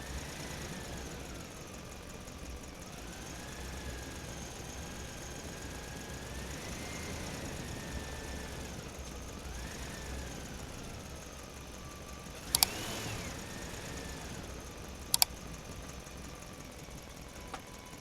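Small electric motors of an RC excavator whining as it works, the pitch rising and falling again and again as the motors speed up and slow down. Two sharp clicks come in the second half.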